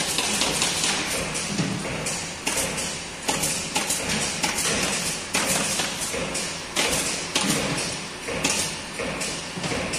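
Frequent knocks, taps and clatter from parts being handled at an automotive seat inspection station, over a steady background din.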